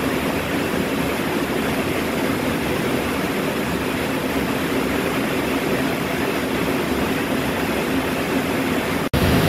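Steady, even roar of an Airbus A380's four jet engines passing high overhead, heard from the ground as a broad rumble. The sound drops out for a moment near the end.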